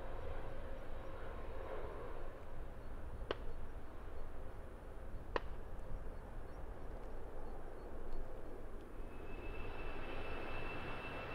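Jet engines of a Boeing 787-8 airliner climbing away after takeoff, a steady rumble with two sharp clicks in the middle. Near the end the sound changes to another jet airliner, an Airbus A320 on the runway, with a steady high engine whine over the rumble.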